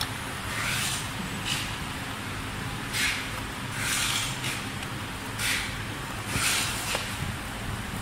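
Rubber tyre being worked off the rim of a Gotway MTen3 electric unicycle's hub-motor wheel: short scraping, rubbing sounds about once a second, over a steady low hum.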